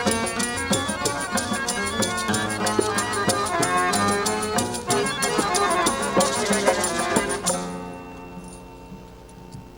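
Malay ghazal ensemble playing an instrumental piece with a reedy accordion or harmonium lead over a steady percussion beat. It comes to its final cadence about three-quarters of the way through, leaving a quieter fading tail.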